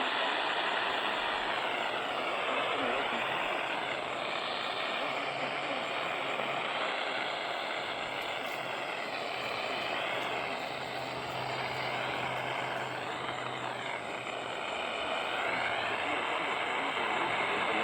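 Radio receiver static: a steady hiss with faint whistling tones that slowly bend up and down, and a low hum underneath.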